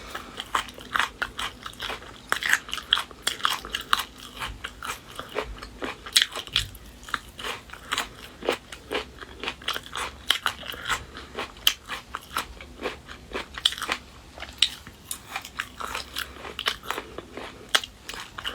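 Close-up eating sounds: biting and chewing spicy braised beef skin and chicken feet, with many small irregular crunches and wet clicks several times a second.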